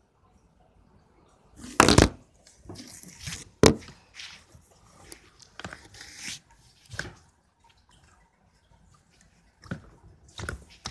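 Fingers squeezing and poking wet, translucent gel in a clear plastic container: irregular wet squelches and clicks with knocks of the container, the loudest about two seconds in and another soon after, a quiet spell, then more squishing near the end.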